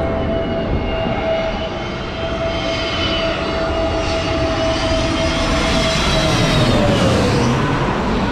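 Twin-engine jet airliner on final approach to land, passing low overhead: deafening turbofan roar with a steady whine that swells to a peak and then drops in pitch near the end as the plane goes over.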